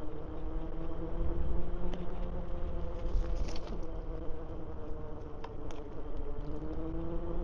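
Electric bike's motor whining steadily while riding, its pitch drifting and rising near the end, over a low rumble of tyres and wind, with a few light rattles and clicks.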